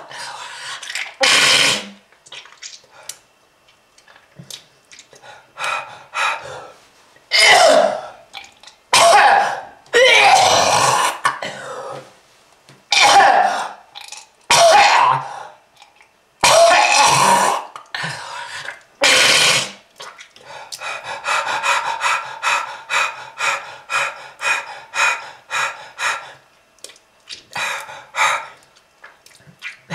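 A person's heavy, hacking smoker's cough with throat clearing: about ten loud, irregular fits in the first two-thirds, then a run of short, quick bursts about two a second.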